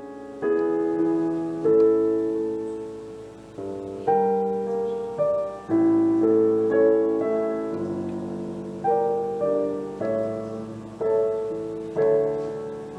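Piano playing slow chords, each struck and left to fade, about one a second.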